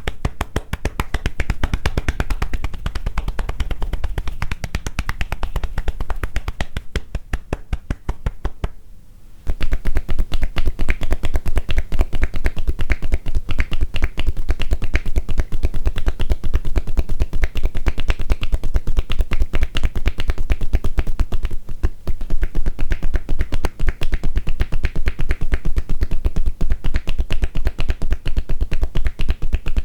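Kōdahō (tapotement) percussion massage: hands tapping on the body in a fast, even rhythm of hollow 'poko-poko' strikes. Softer for the first several seconds and dying down for a moment about nine seconds in, then louder and steady.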